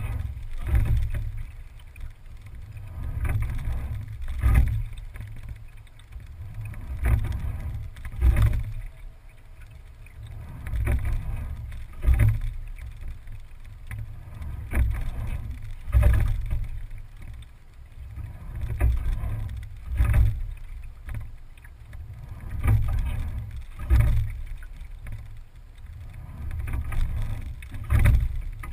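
Single scull being rowed at a steady rate of about one stroke every four seconds. Each stroke brings a sharp clunk of the oars in their oarlocks and a swell of low rumbling water and hull noise.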